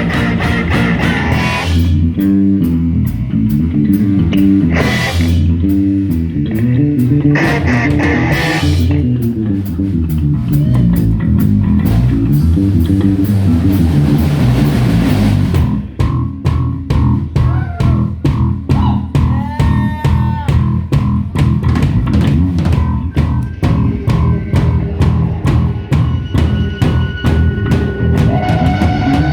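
Instrumental rock music: guitar, bass guitar and drum kit playing with no vocals. About halfway through, the arrangement changes to a tight, evenly pulsed beat.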